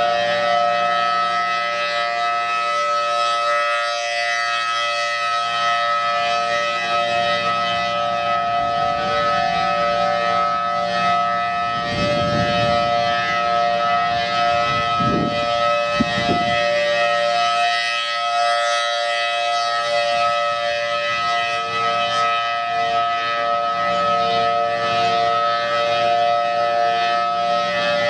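Federal Signal Thunderbolt 1000T outdoor warning siren sounding a steady alert, a loud tone held at one pitch without rising or falling. A few low rumbles come through about halfway.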